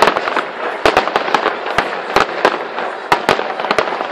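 Aerial fireworks shells bursting: a rapid, irregular run of sharp bangs, several a second, over a continuous dense crackle.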